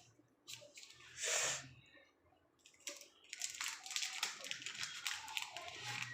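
Phone packaging rustling and crinkling as it is handled: a short burst of rustle about a second in, then steady crackly rustling from about halfway on.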